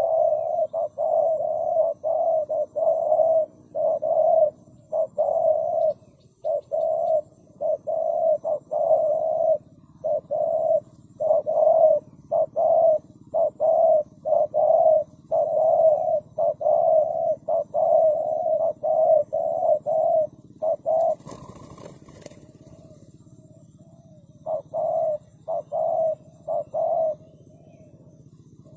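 Spotted dove cooing, a long run of closely repeated low coos broken by short pauses. About three quarters of the way through comes a brief rustling noise. A few more coos follow before the calling stops.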